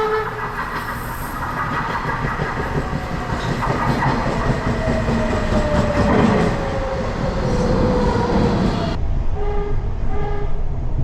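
Hitachi CQ311 rapid-transit train running on the rails with clickety-clack, under a whine that slowly falls in pitch. Near the end the train's horn gives two short toots.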